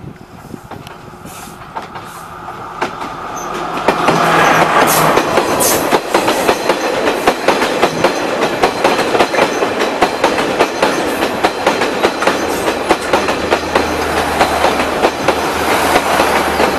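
Class S14 diesel multiple unit express train approaching and passing close by, growing louder over the first few seconds. The wheels then clatter rapidly over the rail joints as the carriages roll past, with a low drone joining in over the last few seconds.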